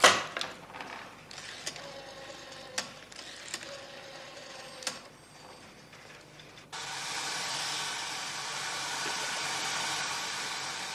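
A desk telephone's handset is picked up with a loud clatter, followed by a few sharp clicks as a number is dialled. About seven seconds in, a steady hiss cuts in suddenly.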